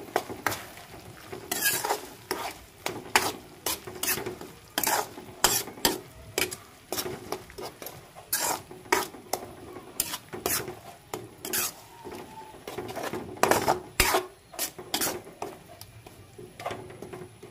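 Metal spoon stirring thick fish paste (ginamos) in a frying pan, with irregular scrapes and clinks against the pan over the light sizzle of the paste frying.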